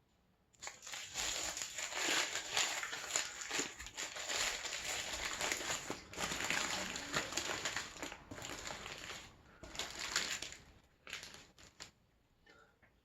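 Paper burger wrapper crinkling and rustling close to the microphone for about ten seconds, then a few faint clicks near the end.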